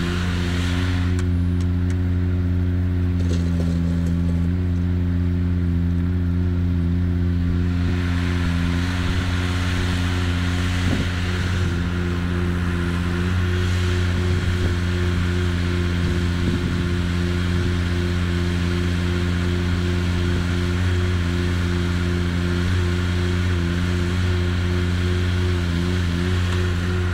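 A construction machine's diesel engine running steadily at a constant speed.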